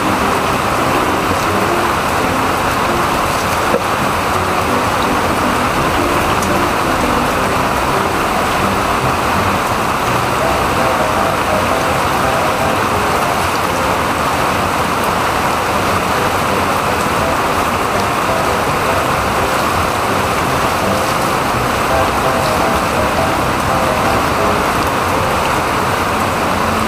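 Heavy rain falling steadily onto a concrete patio and nearby roofing, a constant hiss, with a single sharp tap about four seconds in.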